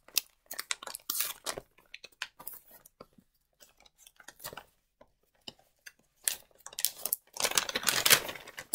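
Red paper wrapping crinkling and tearing as a small parcel is unwrapped by hand: scattered sharp crackles, then a denser, louder rustle about seven and a half seconds in.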